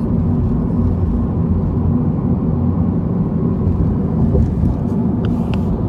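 Steady low road and engine rumble of a moving car, heard from inside the cabin, with a couple of faint clicks near the end.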